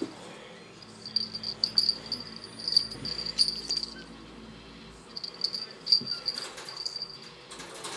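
A small cat toy shaken in two runs of quick jingling rattles, the first about a second in and the second after about five seconds, each with a high ring. A short rustle follows near the end.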